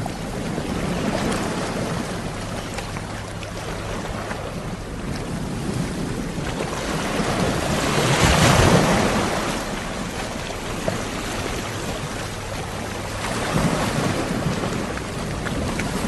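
Sea waves breaking and washing onto the shore in slow swells. The biggest wave crashes about halfway through, with smaller ones near the start and later on.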